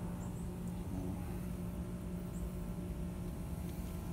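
Steady low background hum with a constant pitched drone, and a few faint, short high chirps.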